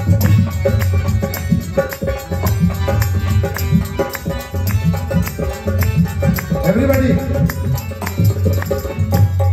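Live devotional bhajan music in an instrumental stretch without singing: a steady hand-drum beat with a heavy bass, melody playing over it, and people clapping along.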